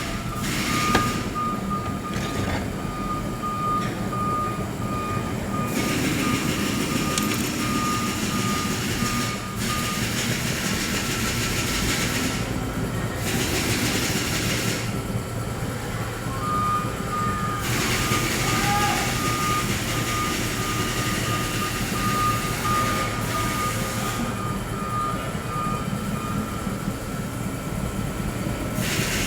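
A heavy diesel truck's engine running steadily, with a rapid series of high beeps at one pitch over it for about the first third of the sound and again through most of the second half.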